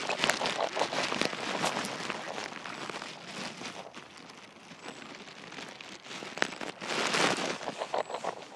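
Crunching and crackling of footsteps on dry pine needles and mulch, loud at the start, quieter through the middle and loud again about seven seconds in.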